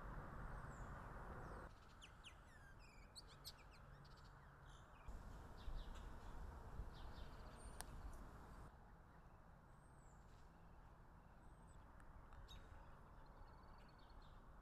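Faint outdoor ambience of birds chirping and calling, with many short chirps (busiest about two to four seconds in) over a low steady background hum.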